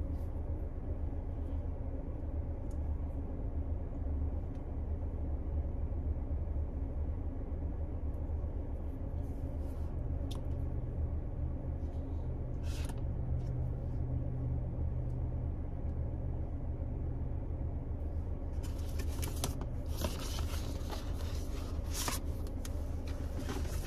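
Steady low hum of a car's engine idling, heard from inside the cabin. A couple of brief rustles come midway, then dense rustling and scraping over the last five seconds as the Apple Watch's cardboard box is handled.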